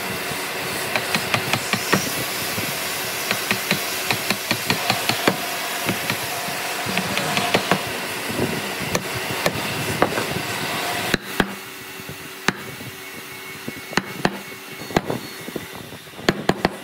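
Hammer knocking on wood: sharp strikes at an irregular pace over a steady hiss. The hiss drops away about eleven seconds in, and the strikes carry on more sparsely.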